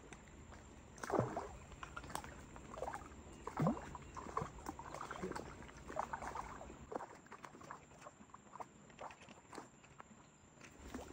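Splashing and rustling as a hooked trout is played and landed on a spinning rod, with many small irregular clicks. Two louder splashes stand out, about a second in and again about three and a half seconds in.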